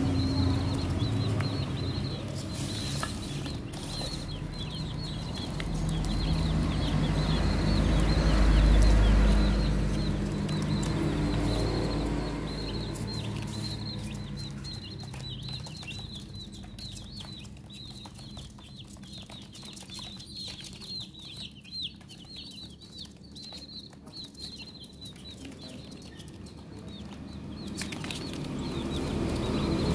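A flock of chicken chicks peeping constantly: many short, high calls that fall in pitch, overlapping one another. In the first half a low rumble swells and fades, loudest about eight seconds in. In the second half many light ticks sound under the peeping: beaks pecking rice off cardboard.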